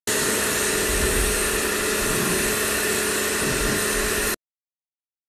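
Pressure washer running steadily, its water jet hissing onto paving over a constant motor hum, stopping abruptly after about four seconds.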